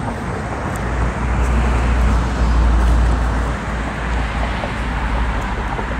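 Street traffic: a steady wash of road noise with a low rumble, swelling as a vehicle passes about two to three seconds in.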